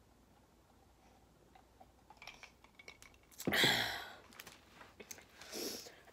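A person drinking water from a glass mason jar: near-silent swallowing, then a few light clicks and two breathy exhales after the drink, the first louder, about three and a half and five and a half seconds in.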